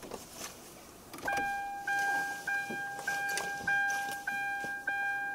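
A car's warning chime sounds parked in the cabin: starting about a second in, a single pitched beep repeats evenly a little under twice a second. A bag rustles faintly as it is pulled from the back seat.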